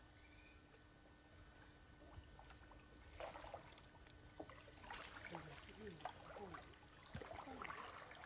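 Faint water sounds around a canoe: small splashes, drips and knocks of paddles and hands in the river water, coming more often from about three seconds in, over a steady high-pitched hum and a few faint chirps.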